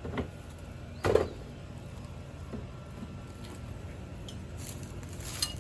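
A few knocks and clatters from demolition debris being handled, the loudest a sharp knock about a second in, with a brief scrape or rattle near the end.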